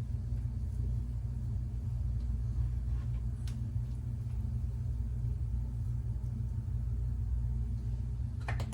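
Steady low rumble, with one faint click about three and a half seconds in and a tap starting to run near the end.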